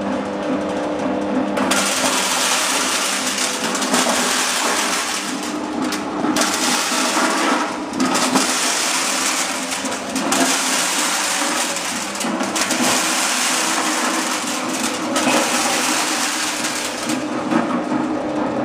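Small corn sheller machine running and stripping kernels from the cobs: a motor running under dense rattling and crunching of kernels, easing briefly a few times.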